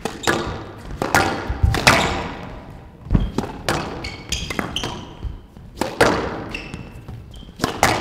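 Squash rally: the rubber ball struck by rackets and slapping against the walls in sharp cracks roughly once a second. Short high squeaks in between, from court shoes on the floor.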